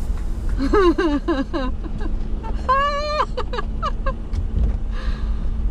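Low, steady rumble of the Jeep Wrangler's engine at a crawl. Over it come several short voice-like calls that bend in pitch early on, then one longer held call about three seconds in.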